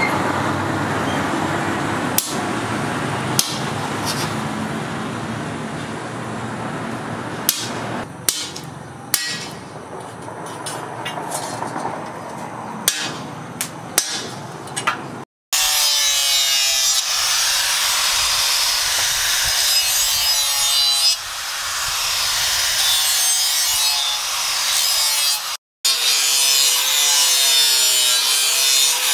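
Sharp metal strikes, a few seconds apart, of a hammer on a chisel held against the steel blade. Then an angle grinder with a flap disc grinds the steel blade, its pitch wavering as it is pressed into the work.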